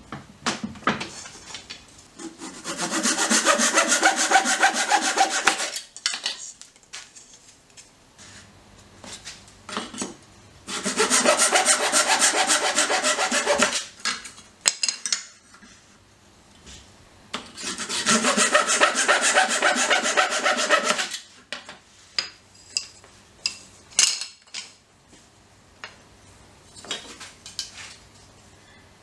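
Fine-toothed hand saw cutting through thin pine strips, three separate cuts of about three seconds each with many quick strokes. Between and after the cuts come light knocks and taps of the wooden pieces being handled on the bench.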